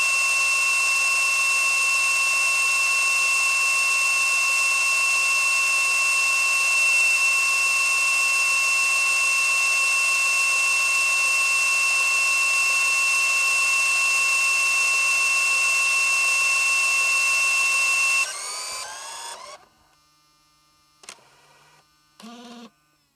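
MiniDV camcorder's tape transport rewinding the cassette: a steady high-pitched motor whine that winds down and stops about 18 seconds in. Then a short click and a brief mechanical whirr near the end.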